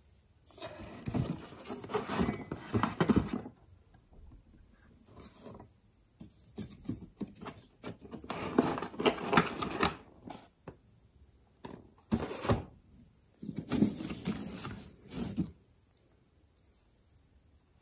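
Household handling sounds in a small room: clicks, taps and rustles of objects being moved, in four bursts with short quiet gaps between them.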